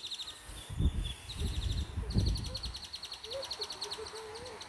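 A small bird singing rapid high trills of many quick chirps, with low rumbles of wind and handling on the microphone, the loudest about a second and two seconds in. A faint wavering hum comes in near the end.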